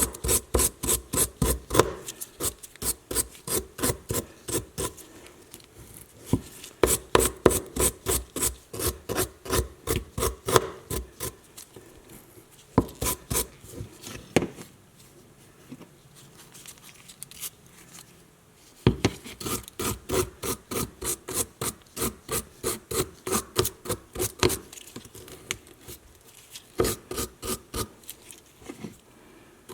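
Hand abrasive strokes rubbed back and forth over the vintage Bernard leather hole punch during its restoration, about three strokes a second. The strokes come in runs of a few seconds, with short pauses between them.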